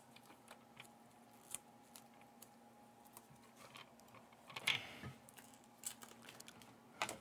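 Mostly quiet, with a faint steady hum and scattered small clicks and taps; the loudest cluster of clicks comes about four and a half seconds in.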